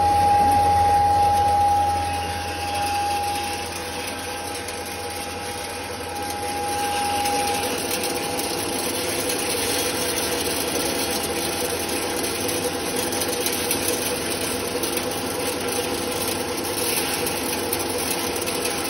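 3 HP maize grinder running steadily. The mill sounds as a continuous machine hum, with a steady high whine that fades away over the first several seconds. The level drops about two seconds in and picks up again a few seconds later.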